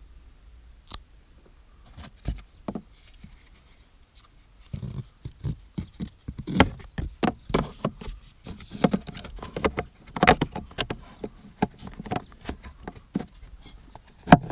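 A run of irregular knocks and clicks, a few at first and then many close together from about five seconds in, with one loud knock near the end.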